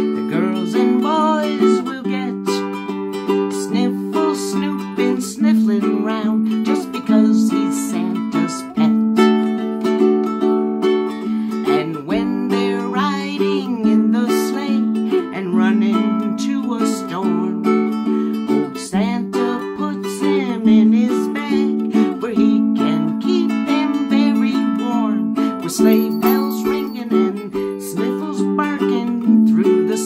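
Ukulele strummed in a steady chord rhythm, with a woman singing along.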